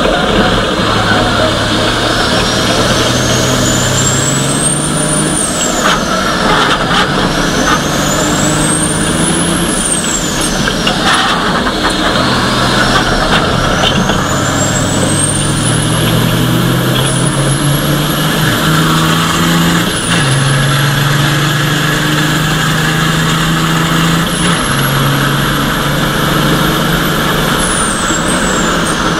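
Onboard sound of a Ford Copa Truck race truck's diesel engine under hard racing load, its pitch stepping as it changes gear. A high whine climbs as it accelerates and falls away each time it slows, about six times.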